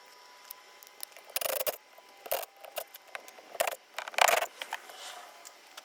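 Metal hand tools working on a Honda D-series engine: several short bursts of clicking and clinking with small ticks between them, the loudest about four seconds in.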